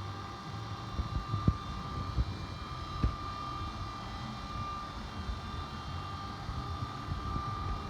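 CNC vertical machining center running: a steady high whine over a low rumble, with a few sharp knocks.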